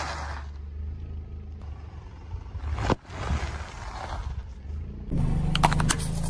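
A car tyre slowly crushing things on asphalt over the low hum of the car's engine. First comes the crunching of crisp fried pillow snacks, then the crackling of a snack bag of popcorn being flattened. Near the end a plastic container cracks several times in quick succession.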